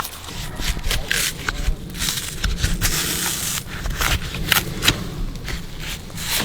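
Bark being peeled and torn from a Phellodendron (huangbo) trunk: scraping and crackling with many irregular sharp snaps.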